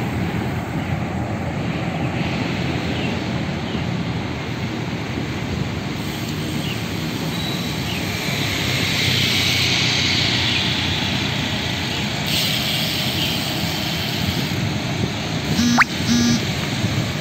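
Steady rush of wind on the microphone and road noise while riding a bicycle alongside traffic, swelling a little around the middle. Near the end comes a sharp click and a short pitched tone in two parts.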